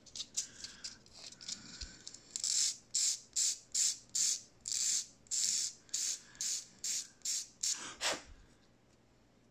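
Small hand file scraping the cut edge of a tiny N scale model roof part in quick, even back-and-forth strokes, about two a second. The strokes start faint and scattered, settle into a regular rhythm about two seconds in, and stop near the end.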